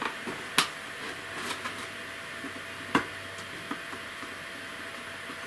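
Handling of a model kit's box and packaging: a few sharp clicks and small handling noises, the two loudest clicks about half a second in and about three seconds in, over a faint steady hum.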